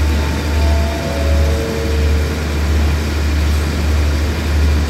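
A stationary diesel train idling with a loud, steady low hum that pulses slowly. A few faint short tones sound in the first two seconds.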